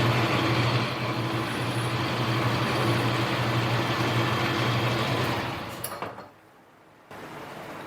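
Metal lathe running, a steady motor hum and gear whir, which dies away about six seconds in.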